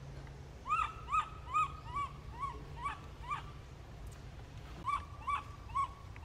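An animal calling in a rhythmic series of short arched notes, about two a second: seven notes, a pause of about a second and a half, then four more.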